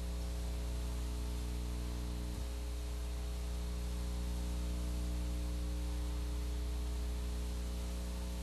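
Steady electrical hum with an even hiss over it, with no commentary or crowd sound: mains hum and line noise in the recording's audio.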